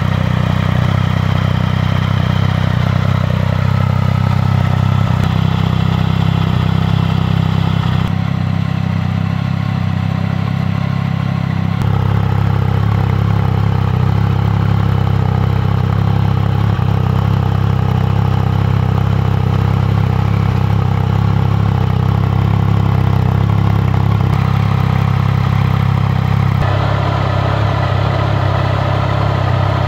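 Triumph Speed Triple 1050's inline-three engine idling steadily through an Arrow aftermarket silencer.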